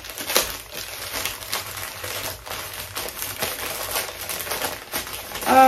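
Plastic packaging bag crinkling and rustling in irregular crackles as a piece of clothing is handled and pulled out. It ends with a short voice-like sound.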